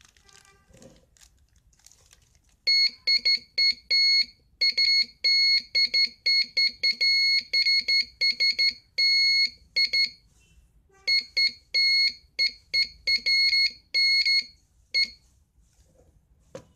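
Morse code practice oscillator beeping a single high tone, keyed by hand into short dots and longer dashes with uneven gaps. The keying starts about three seconds in and stops a couple of seconds before the end.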